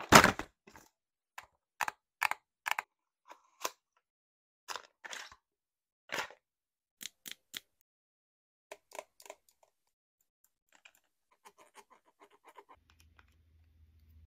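Long acrylic fingernails tapping and clicking on cosmetic packaging, a cardboard box and a plastic squeeze tube of liquid blush, in about a dozen separate sharp taps. The loudest comes right at the start; the last few seconds hold only faint, quick ticking.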